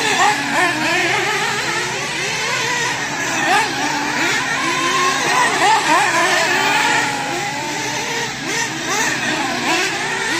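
Radio-controlled race cars' motors whining up and down as they accelerate out of and brake into the turns of a clay oval. Several rising and falling whines overlap, one after another.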